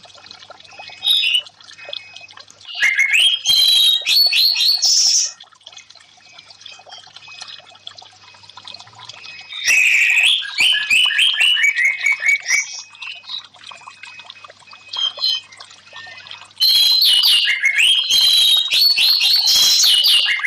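Orange-headed thrush (anis merah) singing in several loud bursts of quick, varied, sliding notes, each a few seconds long with pauses between, over a faint steady trickle of water.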